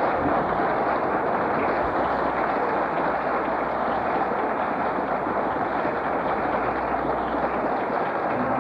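A large crowd applauding steadily, on an old recording with little treble.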